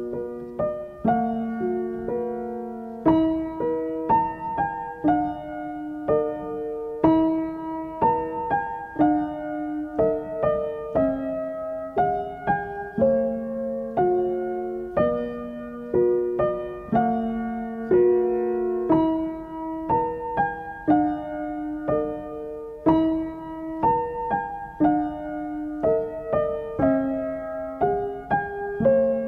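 Background music: a slow, gentle piano piece, its notes struck about once or twice a second and each ringing out and fading.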